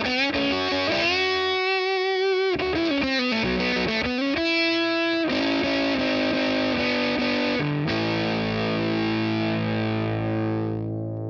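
Electric guitar played through a BJFE Bone Bender, a Tone Bender-style fuzz pedal, through a guitar amp: a run of single notes with string bends, then a chord struck about eight seconds in and left to ring out.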